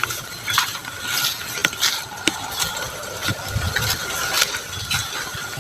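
A vehicle's mechanism rattling with irregular sharp clacking knocks, over a faint steady whine.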